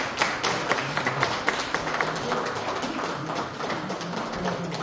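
Spectators applauding, a dense patter of hand claps, with a faint murmur of voices underneath.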